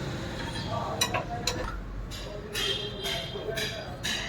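Metal tools clinking a few sharp times as a wrench works the front lower control arm bolt of a Mahindra Scorpio, with a man's voice in the background.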